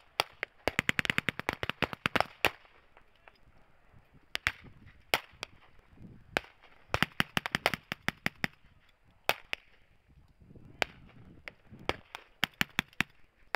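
Blank gunfire from reenactors' WWII-era rifles and machine guns: a rapid run of automatic fire in the first couple of seconds, scattered single shots, another burst about seven seconds in, and a few more shots near the end.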